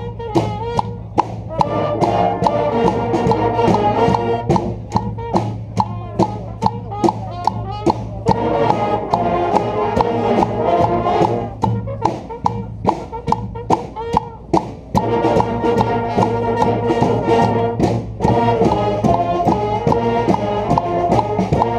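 Brass street band playing a rock-style tune: trumpets, trombones and saxophones over tubas and a steady drum beat of about two hits a second. The horn lines come in and drop back by phrase.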